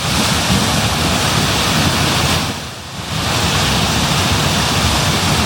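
Wind buffeting the microphone: a loud rushing rumble that eases off briefly a little before halfway, then comes back.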